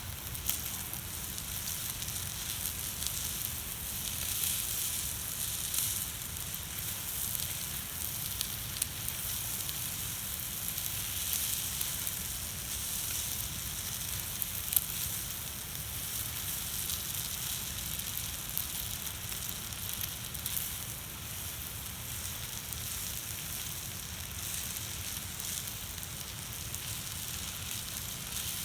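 Food sizzling steadily on a hot steel griddle plate over a campfire, with occasional sharp crackles from the burning wood.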